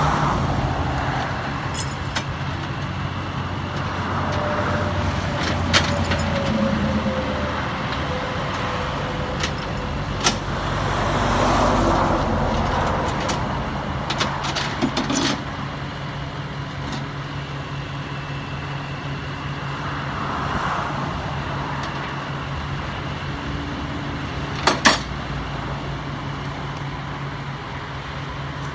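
Flatbed tow truck's engine running steadily, with passing highway traffic swelling and fading. A few sharp metal clanks come from the work at the tow truck's ramp, two of them close together a few seconds before the end.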